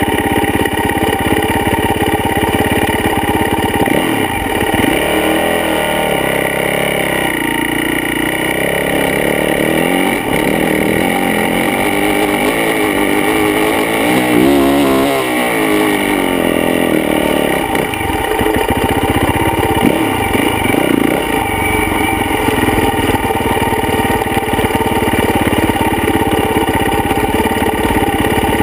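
Yamaha YZ450F dirt bike's four-stroke single-cylinder engine running hard, heard from a mount on the bike. Its pitch rises and falls several times through the middle as the rider opens and closes the throttle, with steadier running at the start and near the end.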